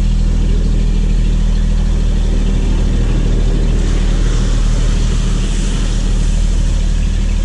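Passenger ferry's engine running steadily, heard on board as a low, even hum with a hiss over it.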